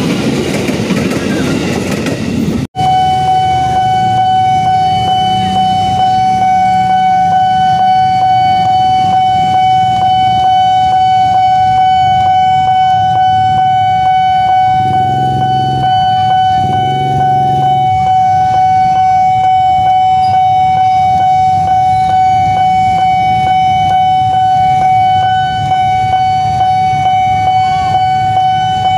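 An electric commuter train passing close by with a rushing rumble, then, after a cut, a railway level-crossing warning alarm sounding one unbroken high tone. Under it, motorcycle engines idle low, with two short swells around the middle.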